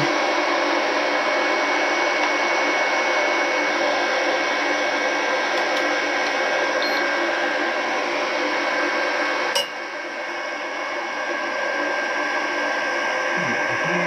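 A fan running with a steady whir and a faint high whine. A single click comes about nine and a half seconds in, after which it runs a little quieter.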